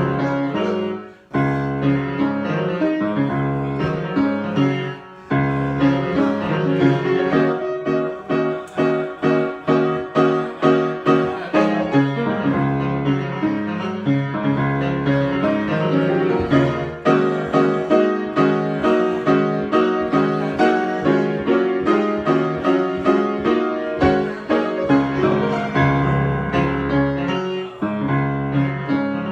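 Solo piano improvisation: chords and repeated notes, with two short breaks in the first few seconds, then a steady pulse of notes.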